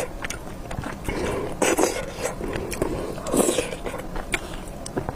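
Close-miked eating of beef noodles: wet chewing with many small mouth clicks, and a louder slurp about every second and a half.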